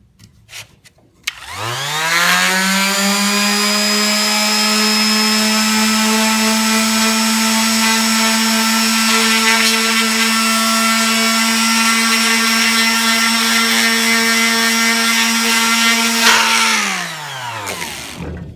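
Electric palm sander starting up, its pitch rising as the motor comes up to speed, then running steadily while it sands a small wooden nameplate, and winding down with a falling pitch when switched off near the end.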